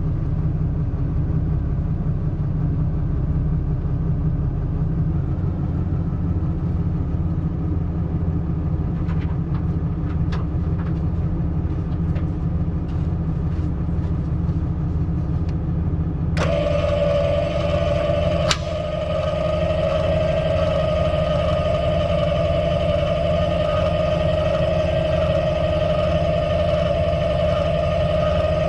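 Ram 2500 Cummins diesel pickup idling with a steady low rumble. About halfway through, a steady mid-pitched whine sets in abruptly and holds, with a single click a couple of seconds later.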